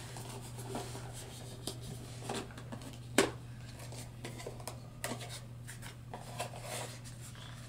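Cardboard packaging box being handled and its flaps folded open: soft rubbing and scraping with small clicks, and one sharp knock a little over three seconds in.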